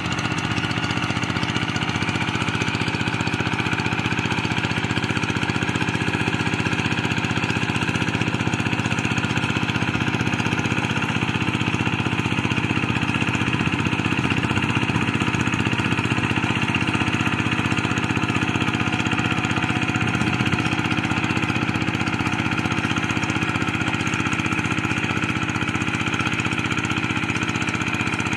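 Single-cylinder Kubota RD85 diesel engine of a two-wheel hand tractor running steadily under load as it pulls a harrow through paddy mud.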